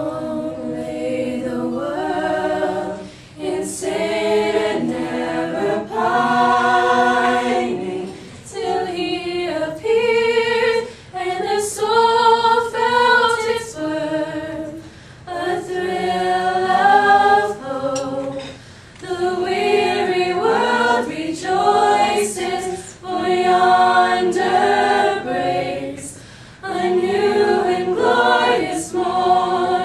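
Small high school a cappella choir, mostly female voices, singing a holiday song in parts without accompaniment. The singing comes in phrases of a few seconds with short breaths between them.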